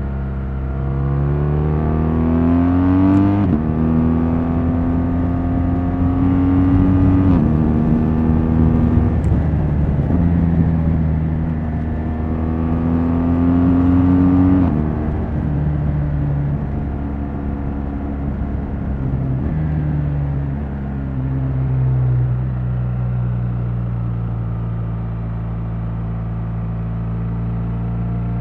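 BMW R1200 GS LC's stock-exhaust flat-twin boxer engine running under load, its pitch climbing and then dropping back sharply three times, about 3, 7 and 15 seconds in. After that it runs lower and steadier, stepping down a little before it evens out.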